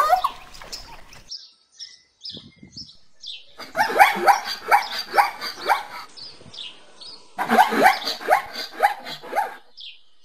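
Zebra calling: two bouts of rapid, yelping, bark-like calls, each about two seconds long, one starting about three and a half seconds in and the next about seven and a half seconds in. Small birds chirp between the bouts.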